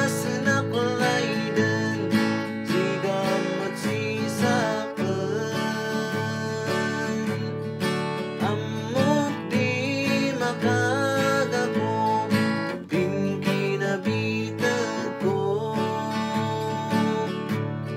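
A man singing a slow song while strumming chords on an acoustic guitar.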